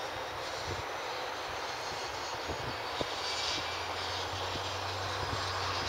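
De Havilland Canada DHC-3 Turbo Otter's turboprop engine spooling up during start, with a steady high whine as the propeller begins to turn slowly. A steady low hum comes in about halfway through.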